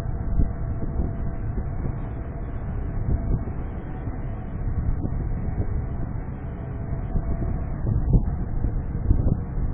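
Steady low machinery rumble with occasional knocks from portal cranes working beside a cargo ship, with a faint steady whine that fades partway through.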